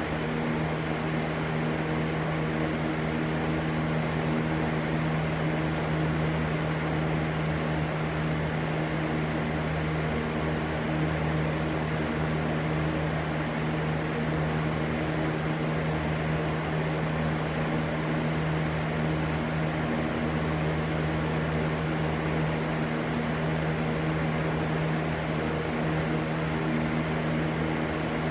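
Electric fan running steadily: a constant motor hum under an even rush of air, unchanging throughout.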